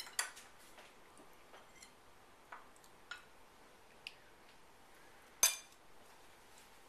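Metal spoons clinking against stemmed glass dessert dishes while scooping ice cream: a few light, scattered clinks, with one louder clink about five and a half seconds in.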